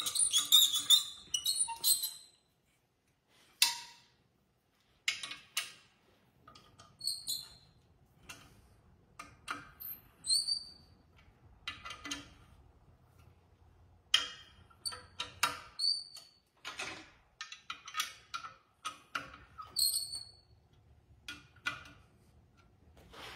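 Socket ratchet clicking in short runs, with a few short high squeaks, as the clutch pressure-plate bolts on a Subaru flywheel are walked down evenly, compressing the pressure plate's spring.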